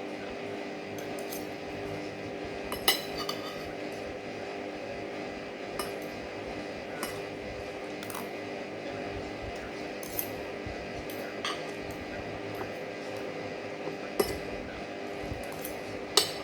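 Cutlery clinking against a plate while eating: scattered sharp clinks, about eight in all, the loudest about three seconds in and twice near the end.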